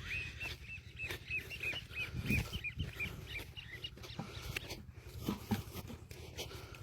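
A bird chirping in a quick series of short calls, about five a second, for the first three seconds or so, with a few dull thumps around two and five seconds in.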